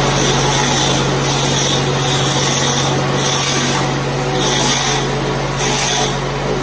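Small single-cylinder petrol engine running steadily, driving a chaff-cutter type grass chopper as bunches of grass are fed in and shredded.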